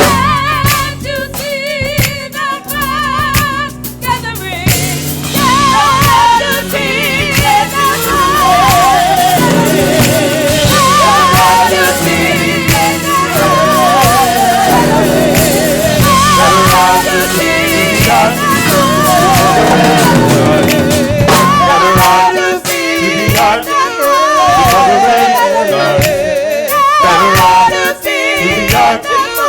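Gospel praise team singing with strong vibrato over a live church band of organ and drums.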